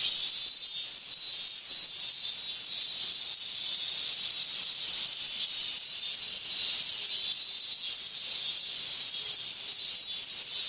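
Cicadas in a steady, high, hissing chorus that cuts off suddenly at the end.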